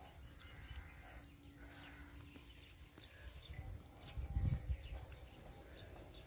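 Quiet rural field ambience with faint bird chirps and a low rumble that swells about four seconds in.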